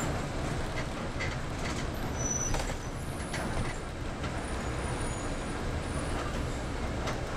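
Double-decker city bus running: a steady engine and road rumble with scattered rattles and clicks, and a short high squeak about two seconds in.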